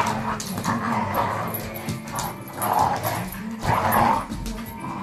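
A Staffordshire bull terrier and a pit bull puppy playing tug of war, giving several short, loud play barks and yips, over background music.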